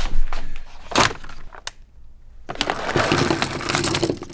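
Rustling and clattering as the contents of a package are rummaged through: a few clicks and a sharp knock about a second in, a short pause, then a long burst of crinkling and rustling.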